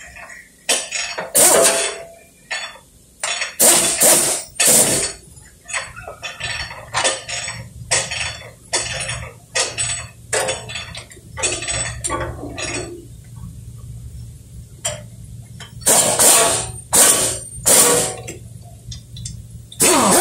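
Irregular metallic clinks and clanks of hand tools and parts knocking against metal under a car, a dozen or more sharp strikes at uneven gaps, over a faint low steady hum.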